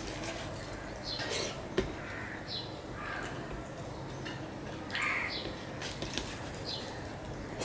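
Eating sounds of a hand mixing and scooping rice and fish curry on a steel plate, with a sharp click on the plate about two seconds in. A bird calls several times in short arched calls in the background.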